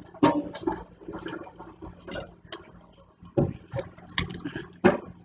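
Eating sounds: wet chewing with a fork clicking and scraping against a plate, in irregular bursts with a few sharper clicks near the end.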